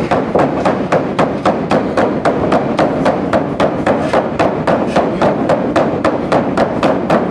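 Rapid, evenly spaced pounding, about five knocks a second, keeping a steady rhythm without a break, against a wrestling ring or mat.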